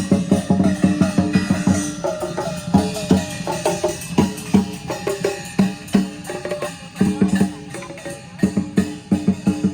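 Music with fast drumming and a melody over it; the drumming thins out in the middle and picks up again near the end.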